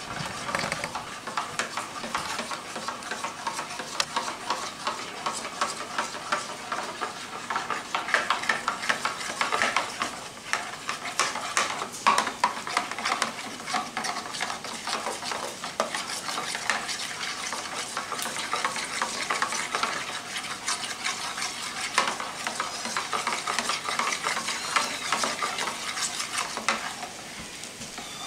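A utensil stirring a thick, creamy white mixture in a small glass bowl, with rapid clicking and scraping against the glass.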